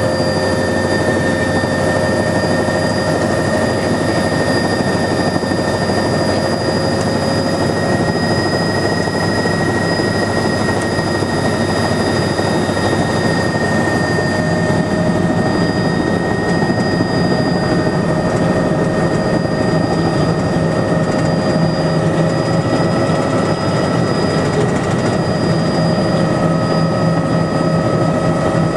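Bell 206 JetRanger helicopter's Allison 250 turboshaft engine and rotor running, heard inside the cabin: several steady high whines over a dense, even rumble.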